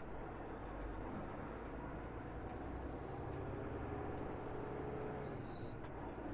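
Steady engine and road noise of a Peterbilt semi truck heard from inside its cab while driving, pulling a loaded flatbed trailer.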